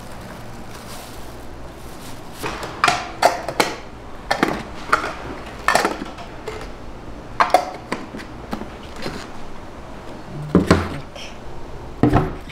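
Lids clacking onto small lidded pots of chili seasoning sauce and a pot knocked down on a wooden counter: about ten sharp, uneven clacks and knocks over a steady low hum.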